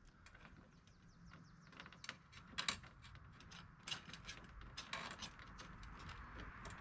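Light metallic clicks and clinks of pontoon mounting bolts and flat washers being fitted to a dredge's metal frame by hand. A quick run of small clicks comes about a second in, then a few sharper single clicks.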